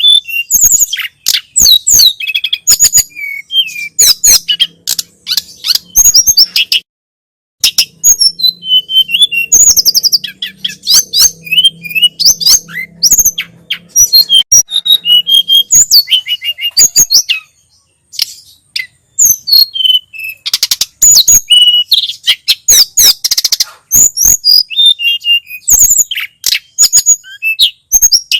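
Tledekan gunung (sulingan gunung) songbird singing a fast, varied song of high chirps, trills and short whistles, with brief pauses.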